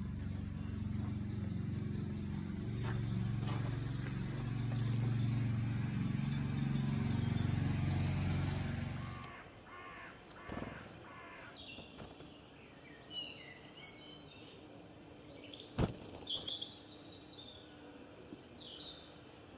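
Birds singing and chirping in a garden, in short repeated phrases. For the first half a steady low hum runs underneath and stops suddenly about nine seconds in. There is a single sharp click near the end.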